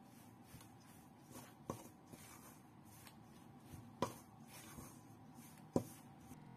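A utensil stirring flour, cocoa and egg into dough in a stainless steel bowl: soft repeated scraping strokes, with three sharp knocks against the metal bowl.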